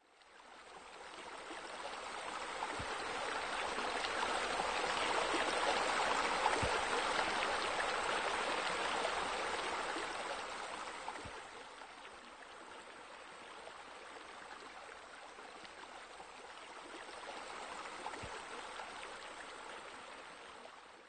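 Rushing, splashing water like a fountain or stream. It fades in at the start, is loudest a few seconds in, dips about halfway through and swells again near the end.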